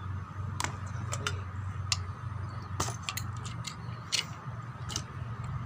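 Irregular light clicks and clinks of small metal objects being handled, about a dozen over a few seconds, above a steady low hum.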